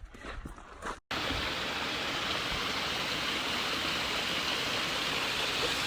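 Waterfall: a steady, even rush of falling water that cuts in sharply about a second in.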